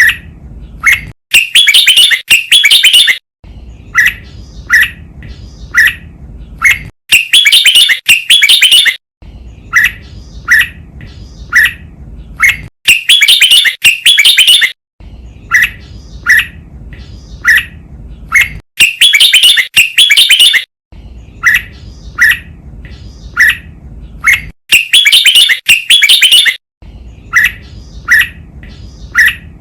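Red-whiskered bulbul song played as a training recording: a loud phrase of about two seconds followed by several short separate chirps. The cycle repeats about every six seconds, five times over.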